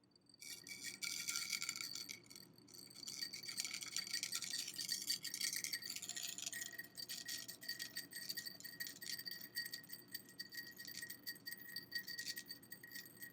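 Metal ball chain pouring out of a small glass container over its rim, a fast continuous rattling and clinking of the metal beads against the glass. It starts about half a second in and dips briefly after two seconds.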